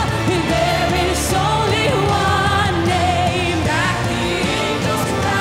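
Live worship music: female singers' voices over a band with drum kit and bass, with a cymbal crash about a second in.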